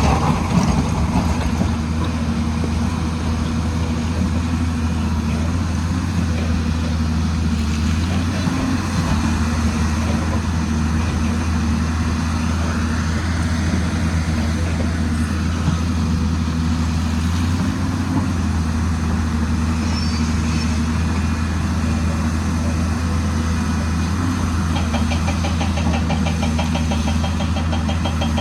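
Hyundai excavator's diesel engine running steadily at a constant speed. A fast, even clicking rhythm joins it near the end.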